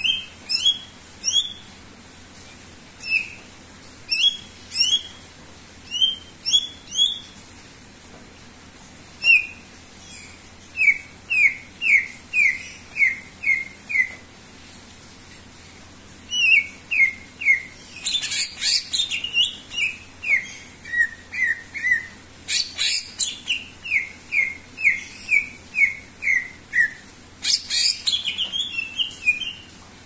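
Caged cucak ijo (green leafbird) singing busily: phrases of short, quick whistled notes, several a second, broken by brief pauses, with three louder, scratchier bursts in the second half.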